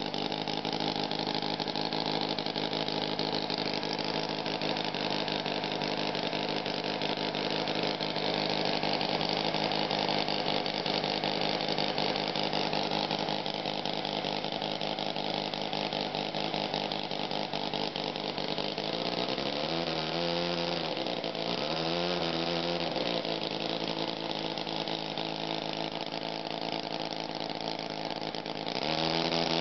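Silver Bullet scale-model engine running steadily with an even beat. About two-thirds of the way through its speed rises and falls back twice, and it swells again near the end.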